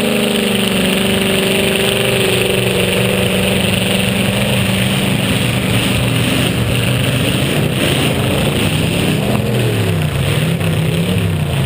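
Demolition derby car engines running. One engine's pitch drops as it comes off the throttle at the start, and near the end an engine revs up and down several times.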